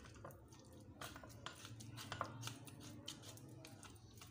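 White plastic spoon pressing and scraping soft boiled potato and banana peels against a green plastic colander, making faint, irregular small clicks and taps. A steady low hum runs underneath.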